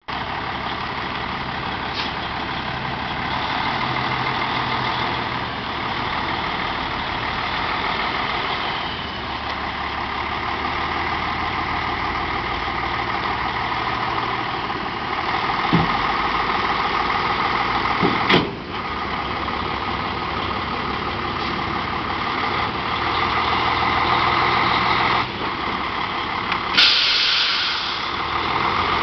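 Semi truck's diesel engine running steadily, with a couple of sharp clunks midway and a sudden burst of air hiss near the end.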